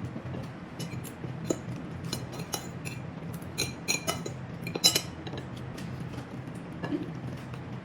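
Cutlery clinking against dishes several times while eating, the loudest clink about five seconds in, over a steady low hum.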